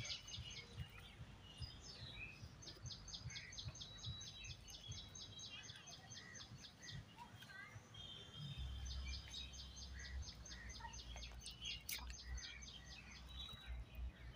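A bird calling a fast run of high, evenly spaced notes, about six a second, twice for several seconds each, among scattered short chirps of other birds.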